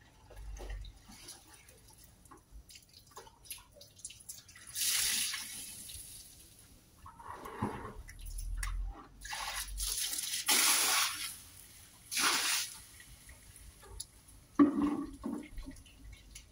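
Water splashing and sloshing in a bucket in several separate bursts as cloths and rags are washed by hand with water from a garden hose, with one sharp knock near the end.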